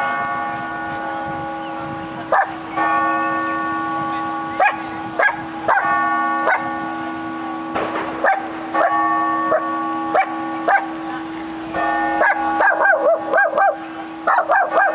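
Clock-tower bells striking a slow series of notes, each ringing on for a second or more. Over them a dog barks in single sharp barks about once a second, then in a fast run of barks near the end.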